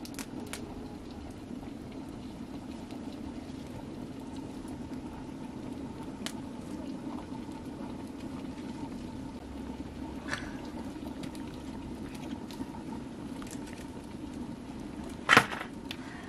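Wood cooking fire burning under a covered pot: a steady low rushing with scattered faint crackles. A single sharp knock comes near the end.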